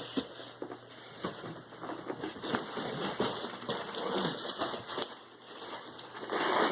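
Cardboard box and plastic packing cushioning being handled during unboxing: scattered crinkles, taps and rustles, with a louder stretch of rustling near the end.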